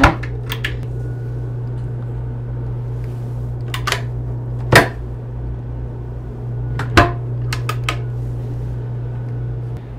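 Yacht cabin storage doors worked by their metal push-button latches: several sharp clicks and knocks, the loudest about five and seven seconds in, over the steady hum of the ventilation.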